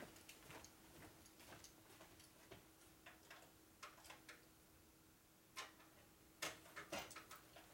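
Near silence broken by scattered faint clicks and taps of small metal parts and tools being handled, a few slightly louder near the end, over a faint steady hum.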